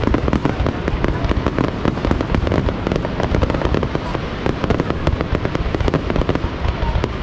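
Fireworks display going off in a dense, continuous barrage of rapid bangs, many per second, with no let-up.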